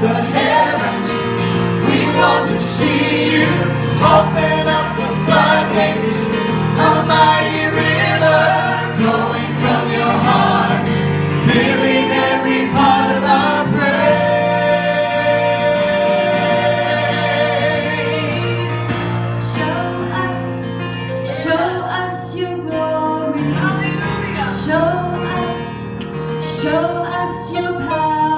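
Christian worship music: several voices singing together over sustained low chords, with a steady rhythmic beat joining about two-thirds of the way through.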